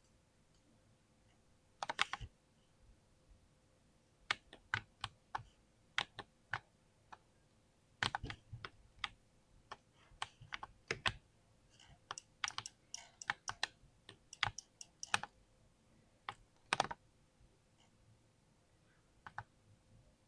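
Mechanical keyboard with Cherry MX Speed switches being typed on in irregular bursts of keystrokes, with a quick flurry of presses about midway through.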